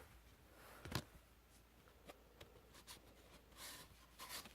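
Faint handling noises from CD box-set packaging and inserts: a sharp click about a second in, then light rustles and small taps.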